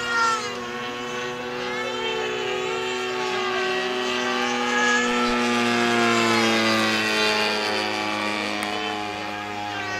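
Engine of a radio-controlled Pitts Special biplane model running in flight during aerobatics, its pitch rising and falling as it manoeuvres. It is loudest a little past the middle and drifts lower in pitch near the end.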